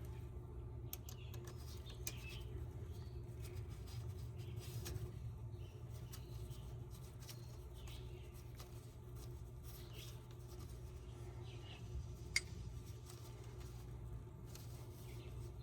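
Faint metal clicks and scrapes of hand tools at the differential carrier, as the small 8 mm retaining bolt for the carrier cross pin is threaded in and worked with a ratchet. There is a low hum under it and one sharper click about twelve seconds in.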